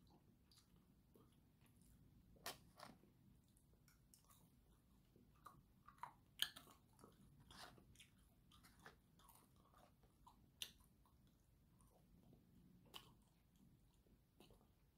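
Faint chewing and mouth sounds of a person eating, with a few soft clicks scattered through, the loudest about six and a half seconds in.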